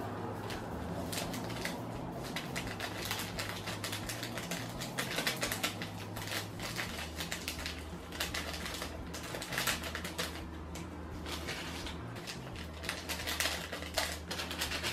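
Light crinkling and crackling of small plastic sachets of instant fake-snow powder being handled and opened, an irregular string of small ticks over a low steady hum.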